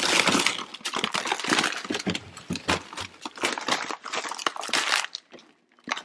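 Plastic bags of frozen food crinkling and rustling as they are handled and shifted about in a chest freezer: quick, irregular crackles that die away shortly before the end.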